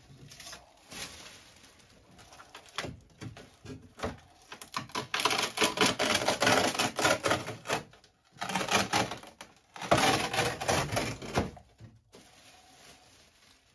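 Foam insulation being pried and torn off the inside of a fibreglass sailboat hull by hand: dense crackling and crunching in two long stretches, the first starting about four seconds in, the second ending a couple of seconds before the end, with scattered smaller crackles around them.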